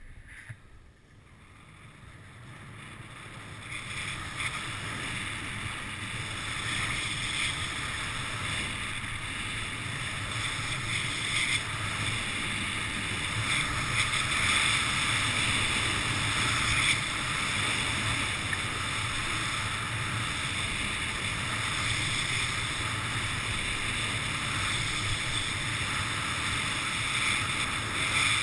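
Skis sliding and carving down groomed snow, a steady hiss mixed with wind buffeting the camera microphone, building over the first few seconds as the skier picks up speed.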